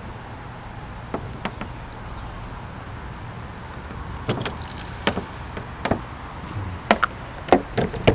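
Irregular clicks and knocks of hard plastic and metal parts as a car seatbelt buckle is handled and pried apart by hand. Two light clicks come about a second in, then louder, more frequent knocks from about four seconds in.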